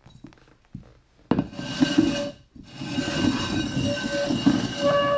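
Upturned terracotta flower pots being slid and shuffled across a wooden floor: a loud grinding scrape with a faint squeal in it, in two stretches starting about a second in and again near the middle.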